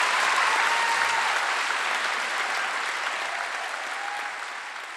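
Theatre audience applauding at the end of a spoken-word reading, the applause slowly dying away.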